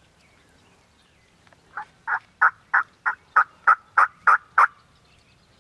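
Turkey calling: a run of about ten loud, short, evenly spaced notes, roughly three a second, starting about two seconds in and stopping abruptly.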